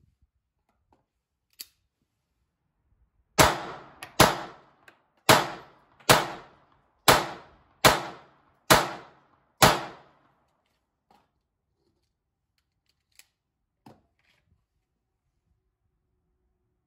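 Eight pistol shots from a Beretta 85BB Cheetah .380 ACP semi-automatic, fired at a steady pace of just under one a second, each ringing out briefly.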